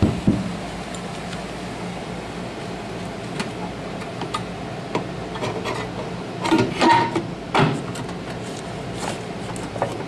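Metal knocks and clunks as a replacement microwave magnetron is fitted into the oven's sheet-metal housing: a sharp knock at the start, scattered small clicks, and a cluster of louder, slightly ringing clunks about two-thirds of the way through, over a steady low hum.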